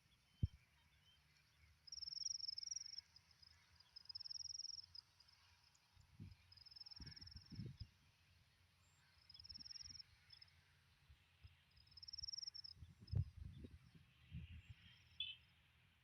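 Insect chirping: five short, high-pitched pulsed trills about two to three seconds apart, over faint outdoor background with soft low thumps now and then.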